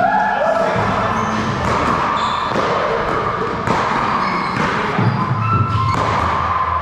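Steady whir of large wall-mounted gym fans, with a few sharp knocks of a racquetball bouncing as players set up to serve.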